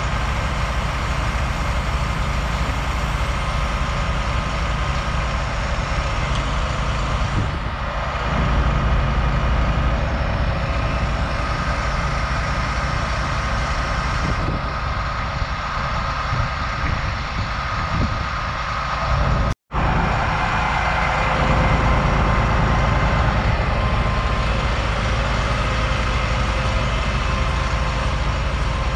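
2006 International chipper dump truck's diesel engine running steadily while it powers the hydraulics for the aerial boom and the tipping chip box, with a steady whine on top. The sound drops out for a moment about two-thirds of the way through.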